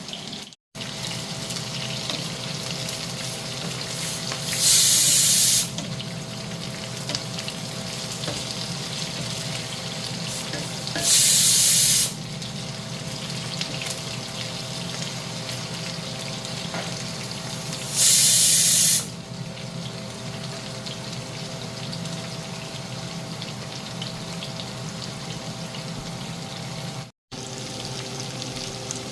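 Water running from a kitchen tap into a sink, steady throughout, with three loud, hissing one-second bursts spread through it.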